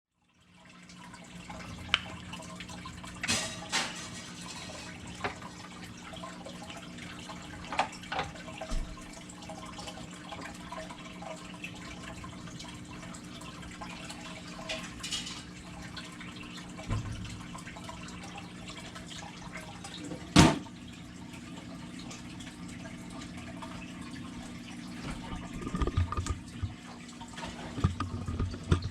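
Aquarium water trickling and dripping over a steady low motor hum, with a few sharp knocks or splashes, the loudest about twenty seconds in.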